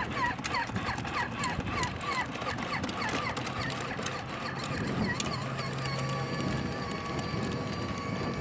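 Battery-powered toy ride-on ATV driving along a concrete path: a high squeak repeats about three times a second, then settles about halfway through into a steady high-pitched whine.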